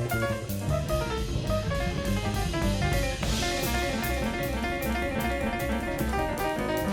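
Acoustic jazz quartet playing up-tempo: piano notes over a plucked upright bass line, with the drum kit keeping time on the ride cymbal. A cymbal crash comes about three seconds in.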